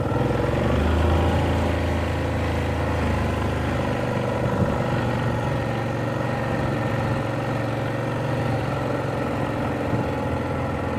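ATV engine running steadily at low speed in low gear, a little louder about a second in.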